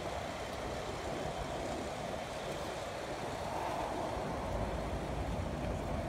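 Road traffic: cars driving past on a multi-lane road, a steady rush that swells as a vehicle goes by in the second half.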